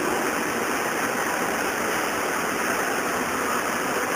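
Steady, even background hiss with no speech.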